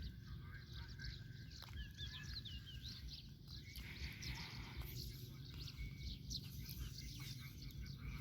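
Birds chirping and calling, with quick warbling notes about two seconds in, over a steady low rumble.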